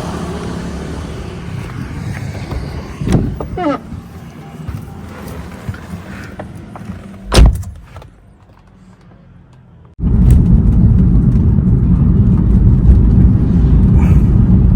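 Car on the move: a low driving rumble fades away, with a single loud thump about seven seconds in. About ten seconds in, a loud, steady low rumble of road noise starts suddenly and continues.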